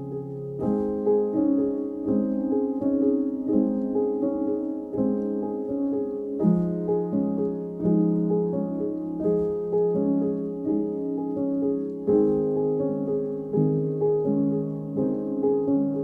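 Background instrumental music led by piano, playing a steady run of notes and chords.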